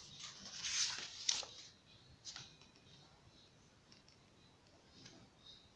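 A page of a large book being turned: paper swishing and rustling for about a second and a half, with a sharp click as it settles and another soft click about a second later, then only faint ticks.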